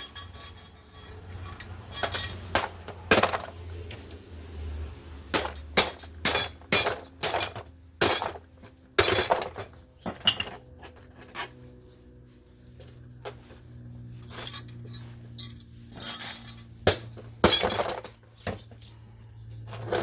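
Irregular clinks and knocks of hand tools against metal parts as a Sentry fireproof safe's door is taken apart, some sharp and close together, others spaced out by a second or more.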